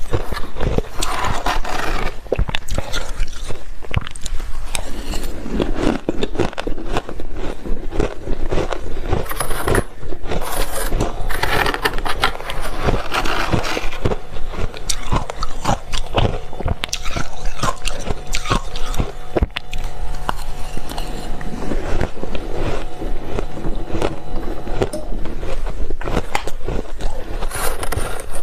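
Close-miked biting and chewing of soft freezer frost: dense, continuous crunching and crackling.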